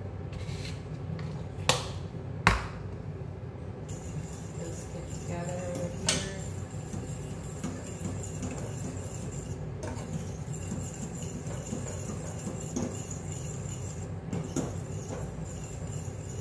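Metal spoon clinking against a stainless-steel saucepan while baking powder is stirred into heating milk gravy: two sharp clinks about two seconds in, a softer one around six seconds, and a few light taps later, over a steady low hum.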